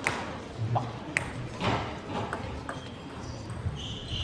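A table tennis ball clicking sharply against paddle and table, about seven irregularly spaced ticks.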